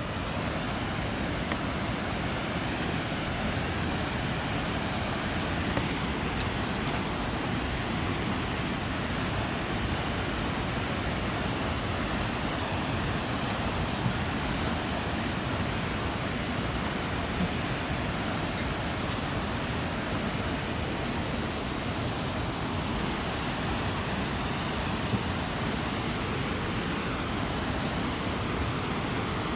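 Harajiri Falls waterfall: a steady, unbroken rush of falling water.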